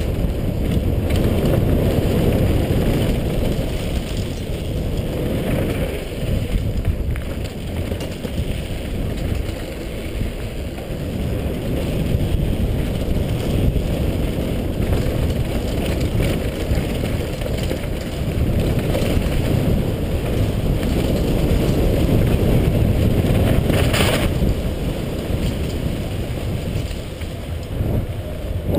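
Downhill mountain bike descending a dirt and gravel trail: a steady rumble of tyres over the ground and wind buffeting the helmet-camera microphone, with a sharp clatter near the end.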